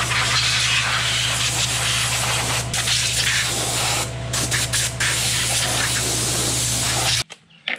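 Heavy rain falling just outside an open garage door: a loud, steady hiss over a low steady hum. It cuts off suddenly near the end.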